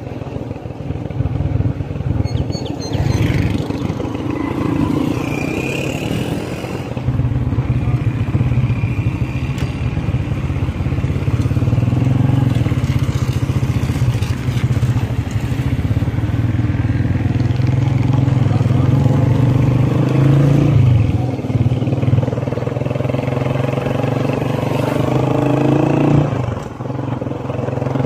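Motorcycle engine running steadily under the rider while it travels along the road. The engine note rises a couple of times in the second half, then drops off sharply near the end as the throttle is eased.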